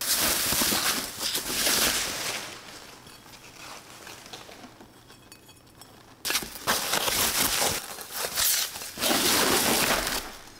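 Packaging being crumpled and rustled by hand, in two long spells with quieter handling between, as newly unboxed glassware is unwrapped.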